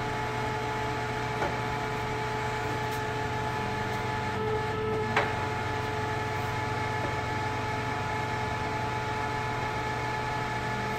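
Vanguard CW61 40" x 80" engine lathe running, its headstock giving a steady hum made of several steady tones. A light click about a second and a half in and a sharper click about five seconds in.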